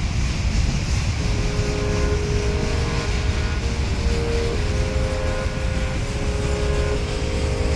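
Wind buffeting the microphone with a steady low rumble and hiss. From about a second in, a simple melody of held notes plays faintly over it.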